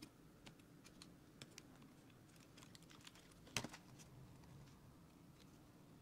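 Faint scattered clicks and light taps of a laptop motherboard with its heat-pipe heatsink being handled and lifted over the open chassis, with one sharper click about three and a half seconds in.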